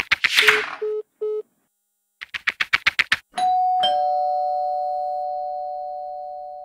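Two bursts of rapid clicking, with three short beeps after the first, then a two-note ding-dong doorbell chime, high note then a lower one, ringing out slowly for about three seconds.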